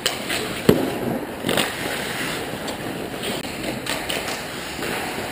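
Ice hockey play: skate blades scraping the ice, with a few knocks of sticks and puck, the loudest a single sharp crack a little under a second in.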